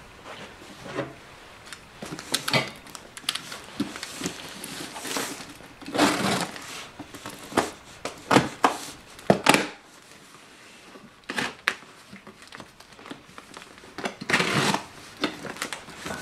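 A taped-up cardboard shipping box being handled and turned over on a desk: irregular crinkling and scraping of packing tape and cardboard, with a few sharper knocks and a brief quieter pause midway.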